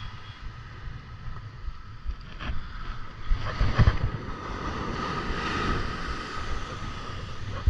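Surf washing up the beach and wind buffeting the microphone, with a loud rush a little past the middle. A spinning reel is cranked in the second half.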